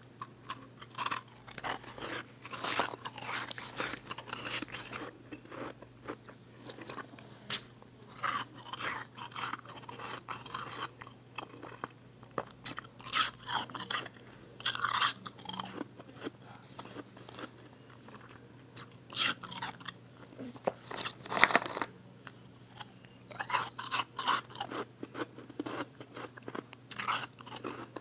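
A person chewing mouthfuls of soft blended ice pressed into small chunks: crisp crunching in runs of a few seconds, with short pauses between.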